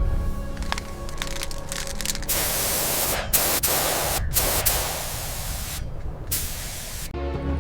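Compressed-air paint spray gun hissing in four bursts, each about a second long with short breaks between them, starting about two seconds in. Background music plays underneath.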